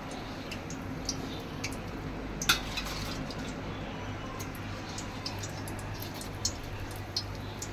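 Samosas deep-frying in a pan of hot oil: a steady sizzle with many scattered crackles and small pops. Light clinks of a metal slotted skimmer against the pan are mixed in, the loudest about two and a half seconds in.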